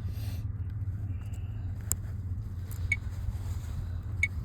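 A motorcycle engine runs with a steady low drone, under a few faint clicks of the protective film being peeled off a camcorder's touchscreen.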